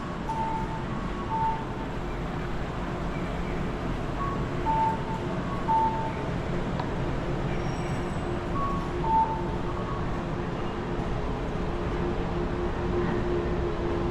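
Audible pedestrian crossing signal giving the two-note electronic 'cuckoo' call, a higher tone then a lower one, repeated in pairs over steady road traffic.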